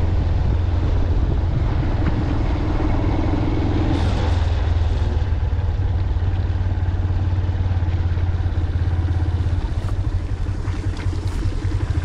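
Motorcycle engine running, with wind on the microphone. A brief hiss comes about four seconds in, and the sound becomes uneven and pulsing near the end.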